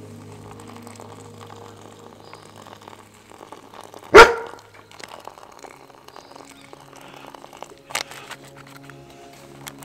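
A dog barks once, a single short loud bark about four seconds in, over faint steady background music.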